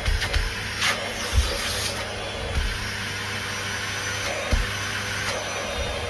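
Bosch GL-30 bagged vacuum cleaner running steadily on a low power setting: an even motor hum and rush of air, quiet for a vacuum. A few soft knocks come through near the start and again about two-thirds of the way in.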